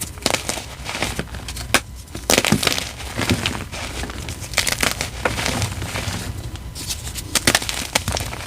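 Compressed gym chalk being crushed and crumbled, an irregular run of dry crunches and crackles.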